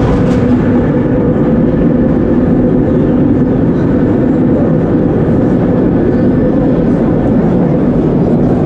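Vintage 1930s BMT Standard subway car under way, heard from inside: a loud, steady rumble of wheels on rails with a steady low hum running through it.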